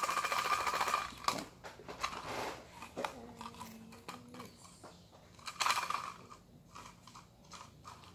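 Folded paper slips rattling inside a plastic cup as it is shaken, once at the start for about a second and again briefly about five and a half seconds in, with paper crinkling in between as the slips are picked out and unfolded.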